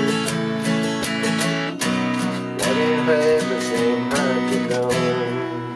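Acoustic guitar strummed in a steady country rhythm, with a man singing a chorus line over it about halfway through.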